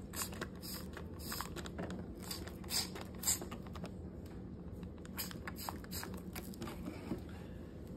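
Faint crackling and small clicks of cleaner foam bubbling and popping in a plastic cup of red cabbage water, over a low steady hum.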